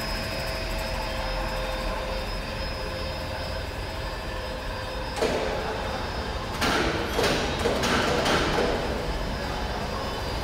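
Slitter rewinder running as it slits and rewinds hot stamping foil: a steady machine hum with a thin high whine. Several louder bursts of hissing, rustling noise come between about halfway and three quarters through.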